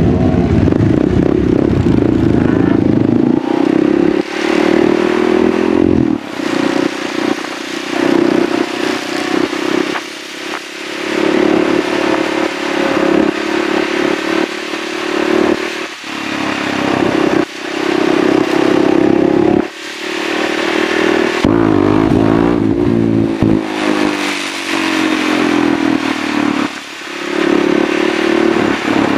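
Husqvarna SMR 630 supermoto's single-cylinder engine pulling away from a standstill and accelerating, its revs climbing and dropping again at each of several gear changes, heard from on the bike.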